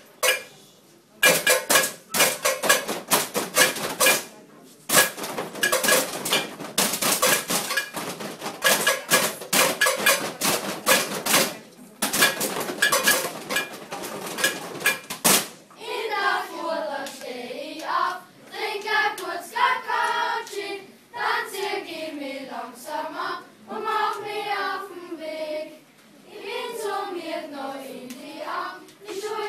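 A group of children beating a fast, clattering rhythm with plastic bottles, with a few short pauses. About sixteen seconds in, this gives way to the children's voices gliding up and down in pitch together.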